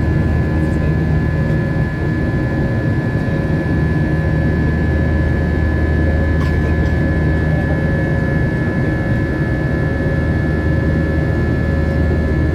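Jet airliner engines running steadily, heard from inside the cabin as a deep rumble with a steady high whine. A single brief click comes about six and a half seconds in.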